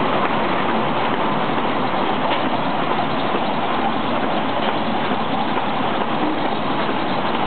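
Muller Martini 3215 Ventura book-sewing machine running: a steady, even mechanical noise with a few faint clicks.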